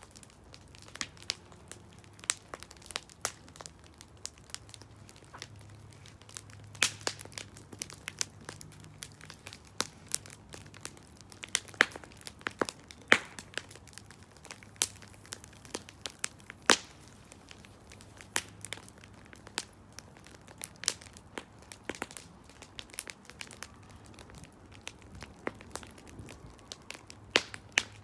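Wood fire crackling, with irregular sharp pops and snaps scattered throughout.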